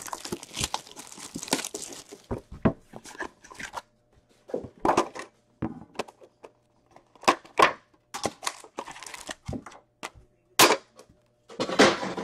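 Plastic wrap tearing off a 2019-20 Upper Deck Series One hockey card tin, then a run of clicks, knocks and crinkles as the metal tin is opened and its foil card packs are taken out and set down, with one sharp knock near the end.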